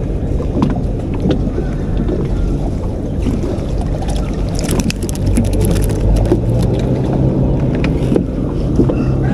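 An engine running steadily, a low rumble with a hum that grows stronger about six seconds in, and a short run of light clicks around the middle.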